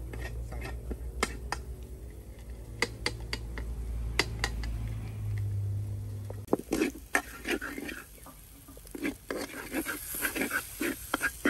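Metal spatula scraping and stirring food in a frying pan, in repeated strokes that get louder and quicker after about six and a half seconds, with a light sizzle near the end. A low steady hum runs underneath and stops about six and a half seconds in.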